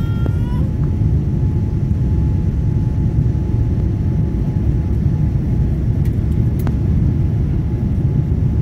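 Steady low rumble of an airliner's jet engines and airflow heard inside the passenger cabin during the climb after takeoff, with a faint steady whine above it. A couple of faint clicks about six seconds in.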